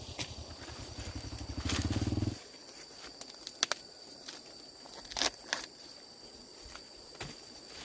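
A small engine running with a rapid low beat that cuts off abruptly about two seconds in, followed by scattered sharp clicks over a steady high whine.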